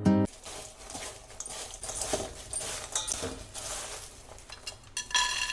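Cooking utensils clinking and scraping against metal cookware and dishes in a run of small, irregular clicks and knocks, with a short ringing clink near the end.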